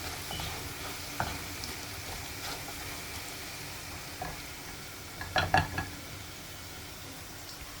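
Food sizzling and frying in a pan as it is stirred, with a short cluster of utensil knocks against the pan about five and a half seconds in.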